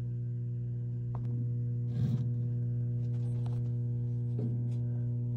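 Steady electrical mains hum from equipment in a school electrical room: a strong low tone with a ladder of higher overtones, unchanging throughout. A brief rustle of handling noise about two seconds in.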